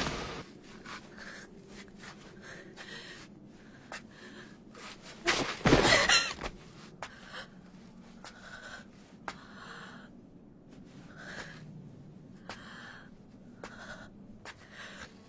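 Labored, ragged breathing and gasps from an injured young woman in anime voice acting, with a louder gasp about five to six seconds in.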